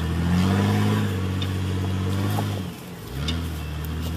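Off-road 4x4's engine pulling under load as it crawls up a rock obstacle. The revs rise a little about half a second in, drop away near three seconds in, then pick back up. A few faint sharp clicks come through over it.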